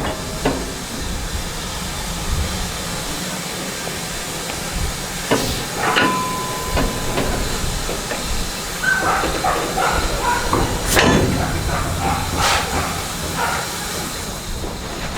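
Steam locomotive hissing steam steadily, with several sharp metallic clanks.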